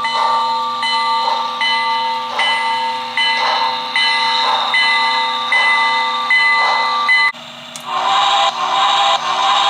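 Model steam locomotive's onboard sound system ringing its bell, struck about every 0.8 s, over soft rhythmic steam chuffs as the engine creeps along. Near the end the sound changes abruptly to a steady hiss with wavering lower tones.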